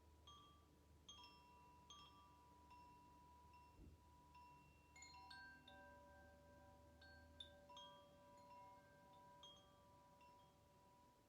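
Chimes ringing softly, with many light, irregular strikes at different pitches, each note ringing on and overlapping the others. There is a soft low thud about four seconds in.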